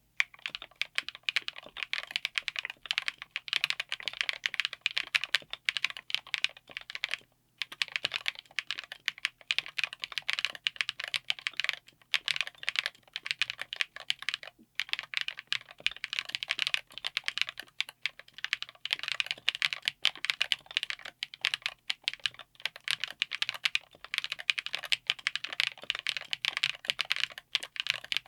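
Fast typing on a mechanical keyboard with Chosfox x Masro Ragna linear switches, built on a DZ60 PCB in a Tofu60 aluminium case with an FR4 plate: a dense stream of key clacks. There are two short pauses, about 7 and 15 seconds in.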